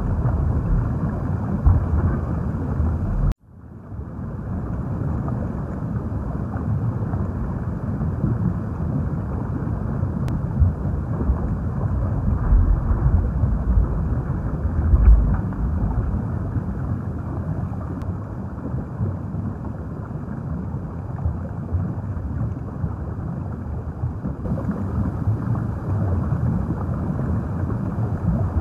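Underwater ambience: a steady low rumble and wash of moving water. It cuts out abruptly about three seconds in, then fades straight back in.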